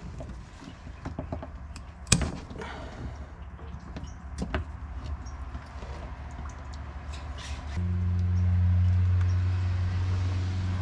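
Hydraulic steering hoses being snipped with side cutters and handled, giving a few sharp clicks and snaps, the loudest about two seconds in. About eight seconds in, a steady low machine hum starts and becomes the loudest sound.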